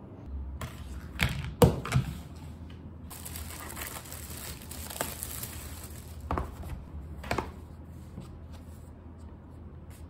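Kraft-paper takeaway box being handled and opened on a desk: paper rustling and crinkling, with a few sharp knocks against the table.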